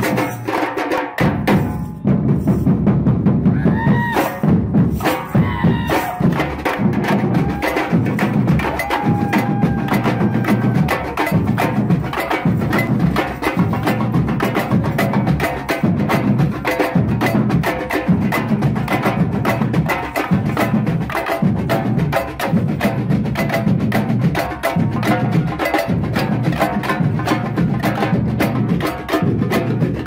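Brazilian street percussion band playing a dense, driving groove: deep bass drums pulsing under fast drum and bell or block strokes. The playing drops out briefly about a second in, then the full band comes back in.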